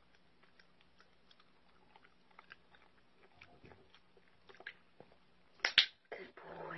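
Siberian husky puppy chewing a treat, with faint crunching clicks a few times a second. Near the end comes a loud sharp crackle, then a rustle.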